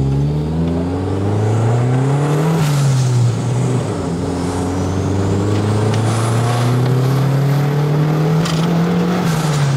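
Turbocharged Honda D16 four-cylinder with a Garrett GT2860RS turbo, pulling hard under boost, heard from inside the car's cabin. The engine note climbs, drops at an upshift about two and a half seconds in, then climbs again through a long pull and falls near the end. A high turbo whistle rises with it.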